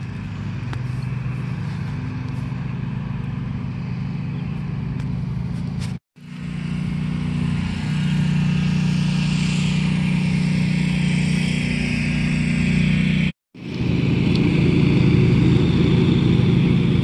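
Loud lawnmower engines from garden landscaping work, running steadily. The sound breaks off briefly twice, about six seconds in and again about thirteen seconds in, and is louder in the later stretches.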